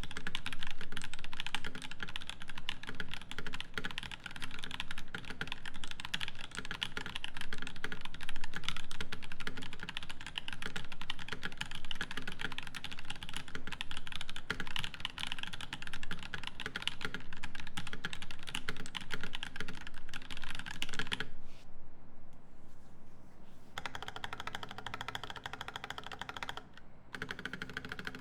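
Continuous typing on a custom mechanical keyboard with lubed Boba U4T 62g tactile switches in a brass plate, topped with GMK doubleshot ABS keycaps: a dense, fast run of keystrokes. About three-quarters of the way in the sharp upper click drops out for a couple of seconds, then the typing carries on.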